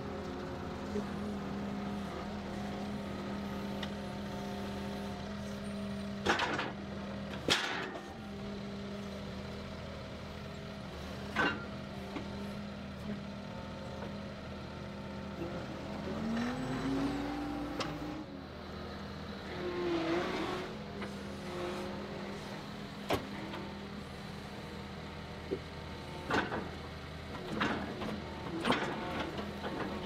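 Skid steer engine running steadily, with a brief rise in pitch about halfway through, and scattered knocks and clunks as logs are grappled onto a wooden trailer deck.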